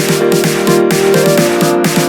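Electronic dance music with a steady beat and a repeating synth melody.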